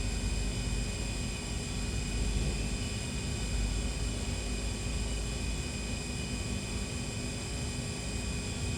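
The spindle of a SYIL V7 CNC vertical machining center is running at a steady 3,000 RPM with no load. It makes a steady whine of several high tones over a low hum.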